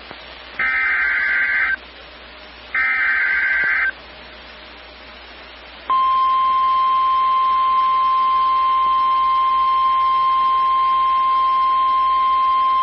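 Emergency Alert System signal: two roughly one-second bursts of warbling SAME digital header data tones, then about six seconds in the steady 1050 Hz NOAA Weather Radio alert tone starts and holds.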